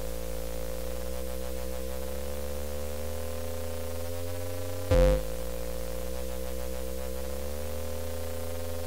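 Electronic drone music: a steady deep bass under a held synth tone, with higher tones sliding slowly in pitch around it, and one brief loud low hit about five seconds in.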